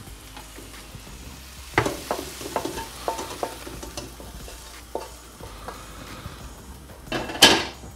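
Fried mushrooms sizzling in a nonstick frying pan while a wooden spatula scrapes them out into a stainless steel pot, with a run of light clicks and knocks of spatula and pan about two seconds in and one louder knock near the end.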